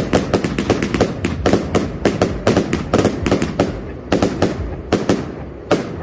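Consumer firework cake firing a rapid string of bangs, about four a second, the shots thinning out over the last two seconds with one last bang near the end.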